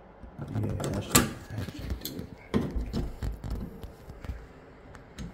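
Metal pliers clicking and scraping against the metal sleeve and plate of a shower valve trim as its small tabs are worked outward, in a few sharp clicks and knocks, the loudest about a second in.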